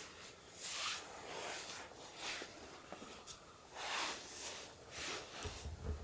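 Soft swishing and rustling as a chiropractor handles a patient on a padded treatment table, about six brief swishes spread through, with a low rumble beginning near the end.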